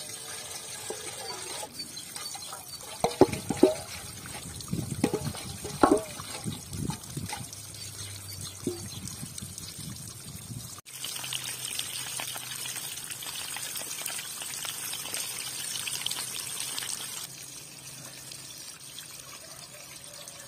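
Water poured from a metal pot splashes irregularly over a sheep's head and trotters on rocks, with a few loud splashes in the first half. About halfway through this gives way to a steady trickle of water running over stones, which gets quieter near the end.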